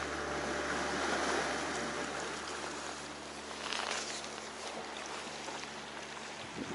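Steady wash of sea water against the breakwater rocks, with wind on the microphone.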